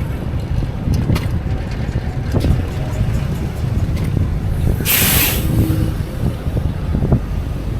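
Wind rumbling on the microphone and street noise during a fixed-gear bicycle ride through city traffic, with a few sharp ticks. About five seconds in, a loud burst of hissing air cuts through.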